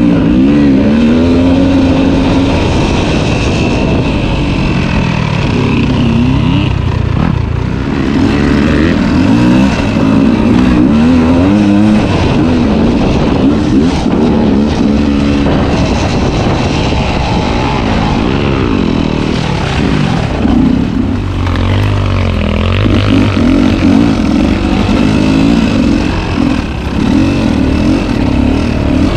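Two-stroke dirt bike engine under way, its pitch rising and falling continuously as the throttle is worked and gears change.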